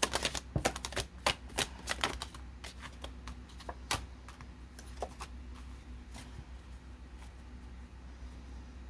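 Tarot cards being shuffled and handled: a quick run of sharp card clicks and taps that thins out to a few single taps by about five seconds in.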